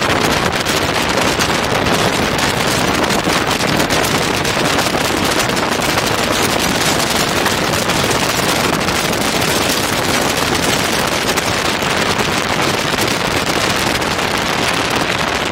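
Tow plane's piston engine running steadily, largely buried under loud, constant wind rush buffeting a camera microphone mounted on the outside of the aircraft.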